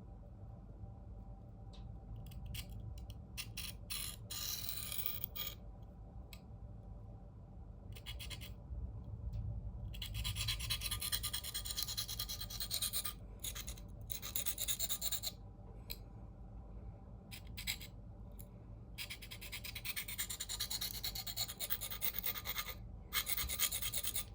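A CPM 4V steel knife blade stroked across a coarse 325-grit diamond sharpening plate: a hissing scrape in runs of strokes separated by short pauses, as the edge is reprofiled and a burr raised.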